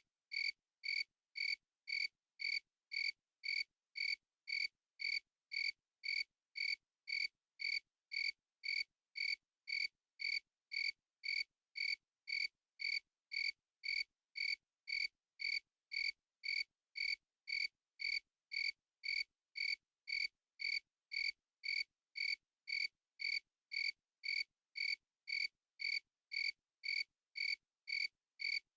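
A cricket chirping in a steady, perfectly even rhythm, about two short high chirps a second, with complete silence between them.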